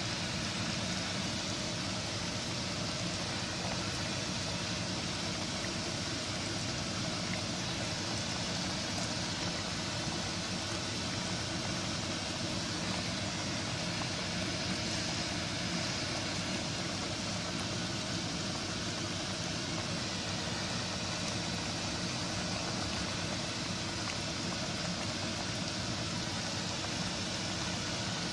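Steady, unchanging hiss with a low hum, like a fan or motor running continuously.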